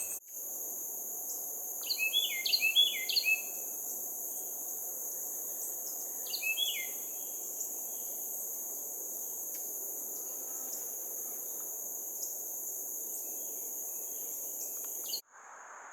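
Carolina wren singing its loud repeated phrases, a run of three to four about two seconds in and a shorter one about six seconds in, over a steady high-pitched drone of insects. The sound cuts off abruptly near the end.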